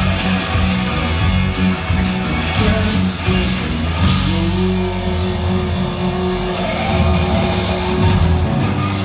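Live rock band playing, with bass, guitar and drums. A steady beat drives the first half, and a long held note comes in about four seconds in.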